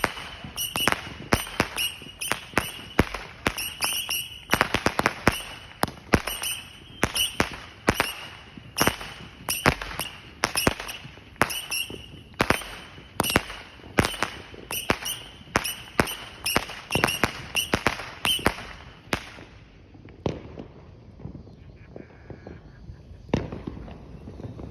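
Fireworks going off in a rapid barrage of sharp bangs, several a second, that thins out about three-quarters of the way through to a few scattered bangs.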